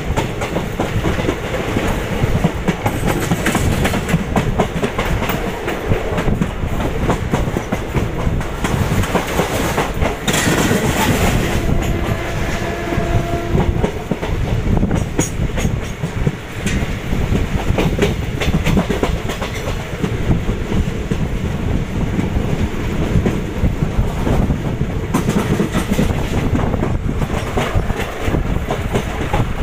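A passenger train running at speed, heard from the coach's open doorway: a steady rumble with the rapid clickety-clack of its wheels over the rail joints and points, and a brief louder rush about ten seconds in.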